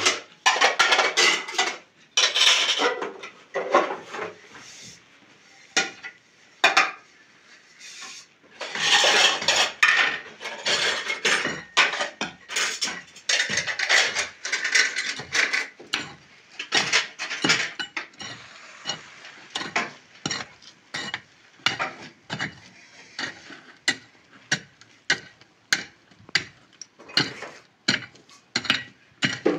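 Plates and a metal pan clinking and clattering as they are washed by hand in plastic basins of water, with rubbing and splashing between the knocks.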